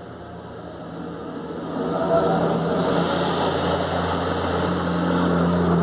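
Large farm tractors' diesel engines passing close by one after another, a steady engine hum that grows louder about two seconds in as a tractor draws alongside.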